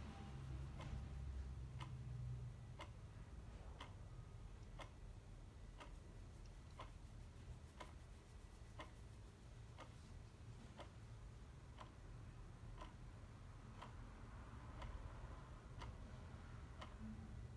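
Clock ticking steadily, about one tick a second, faint over a low background rumble.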